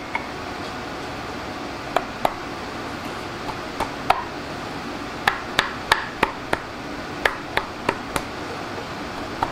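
Light, sharp metallic taps, about a dozen, some in quick runs about three a second, as a new rear main seal is knocked into place in an LS engine's rear cover.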